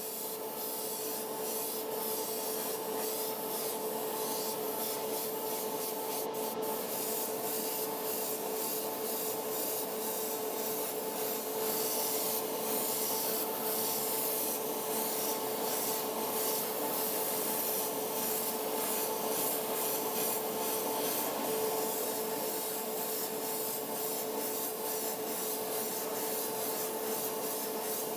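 Airbrush hissing steadily as it sprays gold paint onto a model car body, over a steady low machine hum.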